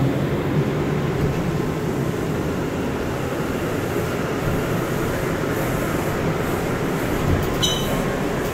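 New York City Subway R179 car running on the A line, heard from inside the car: a steady rumble and hiss of wheels on the rails. Near the end comes a click and a brief high squeal from the wheels.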